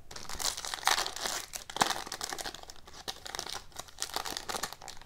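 Shiny foil wrapper of an Upper Deck Ice hockey card pack being torn open and crinkled by hand: a dense run of crackles and rips, the sharpest about one and two seconds in.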